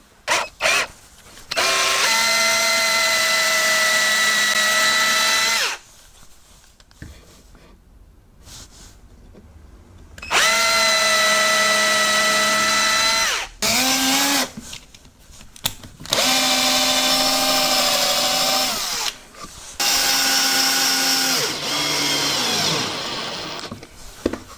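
Cordless drill/driver running in about four bursts of a few seconds each, with a few short blips between, as it drills and drives screws into plywood. The motor note holds steady in each run and sinks during the last one as the drill slows.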